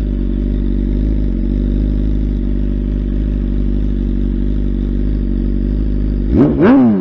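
BMW S1000RR inline-four with an Akrapovic GP Shorty muffler idling steadily. Near the end it is given a quick throttle blip, the pitch rising sharply and dropping back to idle.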